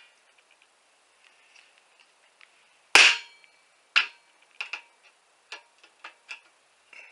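Rubber mallet striking a folding knife to drive its point into a sheet of 22-gauge steel. One hard blow about three seconds in, with a short metallic ring, is followed by about six lighter, quicker taps.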